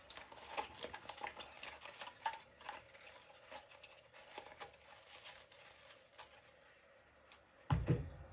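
Rustling and many small light clicks as metal lathe tool post holders are unpacked and handled, then one dull thump near the end.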